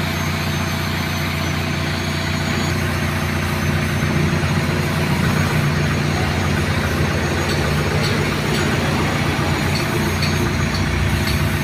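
Heavy diesel engine of a backhoe loader idling steadily, a little louder from about four seconds in, with a few faint light taps near the end.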